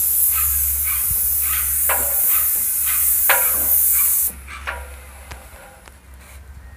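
Paint spray gun on an extension wand spraying with a steady loud hiss, cutting off a little over four seconds in.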